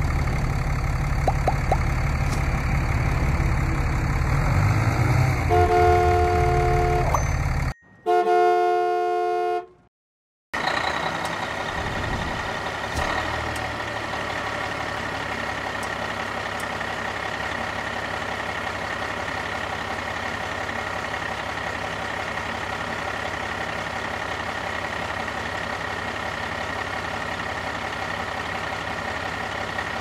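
Truck engine sound running with a low rumble, then a vehicle horn honking around six to nine seconds in. After a short break, a steady engine hum with a high whine continues.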